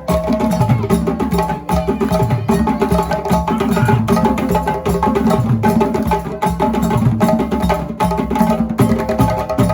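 Percussion-led music: drums and sharp, clacking hits keep a fast, dense, unbroken rhythm.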